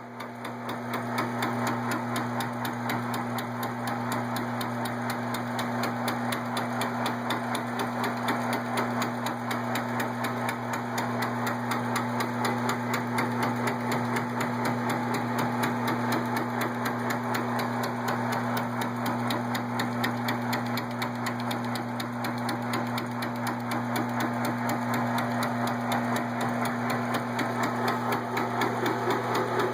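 Metal lathe running: a steady electric-motor hum with a fast, even rattle of gears, coming up to speed in the first second.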